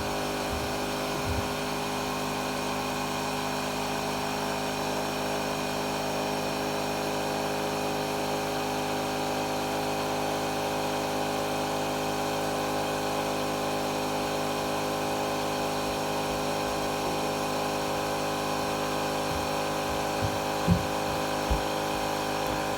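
Vacuum cleaner motor running steadily at full speed, a constant whine with a rushing air noise, left switched on and untouched. A couple of short knocks sound near the end.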